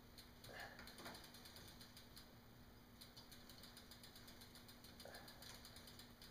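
Faint rapid clicking of a bicycle's rear freewheel pawls in several short runs as the drivetrain turns, with soft rubbing of a rag on the rear cog.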